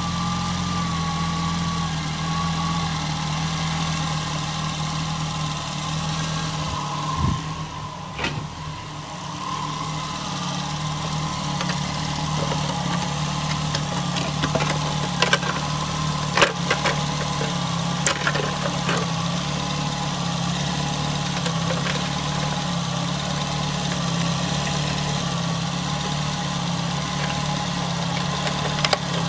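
Nissan Altima's engine idling steadily, with a few sharp clicks about halfway through.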